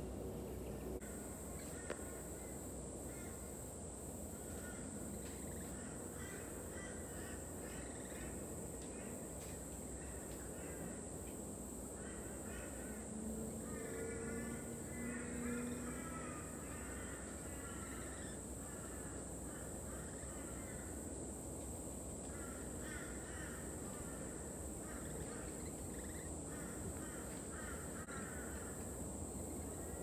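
Rainbow lorikeets calling: harsh, rapid chattering screeches in repeated bursts, busiest and loudest about halfway through.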